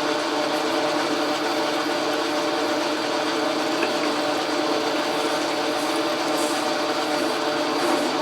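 Logan metal lathe running steadily under power, taking a cut, with a constant hum and whine from its drive.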